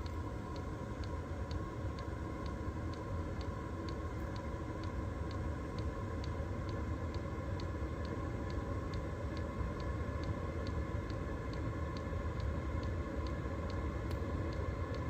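8 kW diesel air heater running on used oil just after ignition: its combustion chamber and fan give a steady low rumble and hum, while the fuel dosing pump clicks evenly about twice a second.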